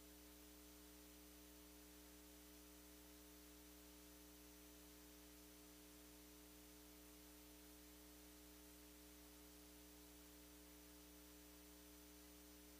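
Near silence: a faint, steady hum with light hiss underneath.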